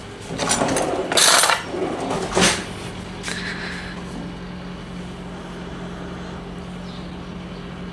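Kitchen handling noises: a few scrapes and knocks of utensils and containers, with one sharp knock about two and a half seconds in, over a steady low hum.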